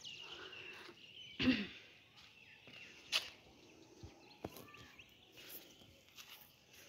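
Faint outdoor ambience with scattered bird chirps, and one brief louder call with a falling pitch about a second and a half in.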